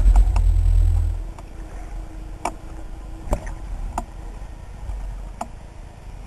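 Muffled underwater noise heard through a camera housing while a freediver swims. A low rumble of water moving past dies away after about a second. What is left is a quieter hiss with about five sharp, spaced-out clicks.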